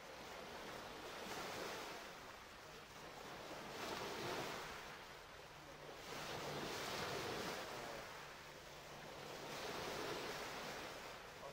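Small waves washing in at the water's edge, rising and falling in slow surges every few seconds, with wind buffeting the microphone.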